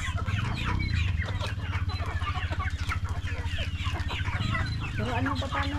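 A flock of chickens clucking and squabbling over feed scattered on the ground, many short overlapping calls, over a steady low hum.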